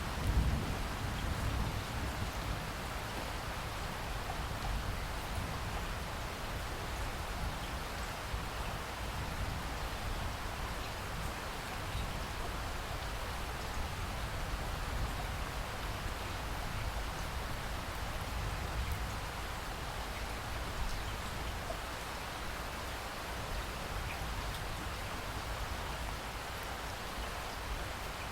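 Steady rain falling, with scattered drops and a low rumble; a brief louder swell about half a second in.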